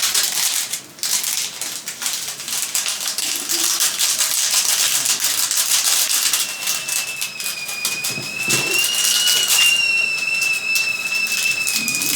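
Dense, rapid crackling, joined about six seconds in by a steady high-pitched whistle that wavers slightly in pitch and is still sounding at the end.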